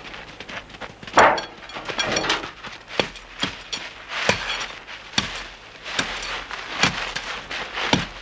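Sword fight: blades clashing against swords and shields in sharp metallic strikes, about one a second, with scuffling in between.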